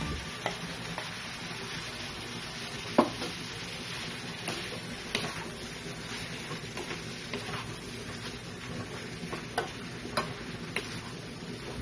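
Pork pieces and boiled liver and intestine sizzling in a metal wok while a spatula stirs them, with scattered clicks and scrapes of the spatula against the pan. A sharper knock about three seconds in.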